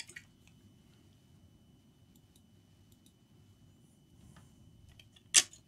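Multimeter continuity beeper giving a faint, steady high tone for about four seconds while a probe rests on a laptop motherboard trace: the sign that the probed point connects to the other probe. A sharp click near the end.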